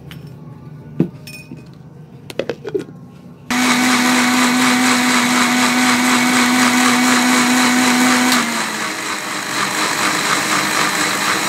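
Electric kitchen blender starting abruptly about three and a half seconds in and running at full speed, blending cucumber, mint and lemon juice with water. Its steady hum drops out about five seconds later while the whirring goes on. Before it starts there are a few light knocks.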